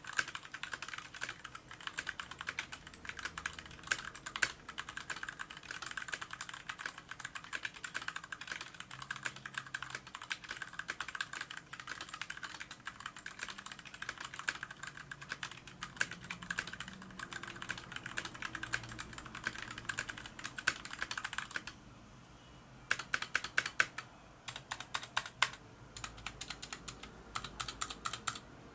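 Rumi61 mechanical keyboard with Gateron Brown tactile switches being typed on at a fast, steady pace: a dense run of key clicks. The typing stops briefly about three-quarters of the way through, then resumes in short spurts.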